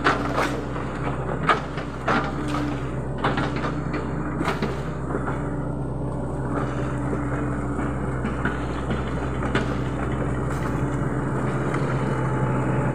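Sany SY75C excavator's diesel engine running steadily, with a scatter of sharp knocks and cracks, most of them in the first five seconds.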